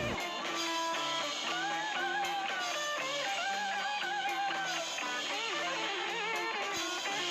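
Background instrumental music led by guitar, playing a melody of held, wavering notes over a lower bass line.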